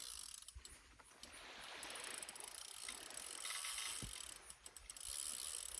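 Fishing reel ratcheting under the load of a hooked giant trevally, in uneven stretches of one to two seconds.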